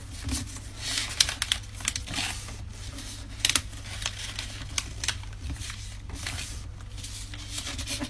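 Sheet of paper rustling and crinkling as it is folded into a thin strip, with scattered sharp creasing clicks and a sharper one about halfway through.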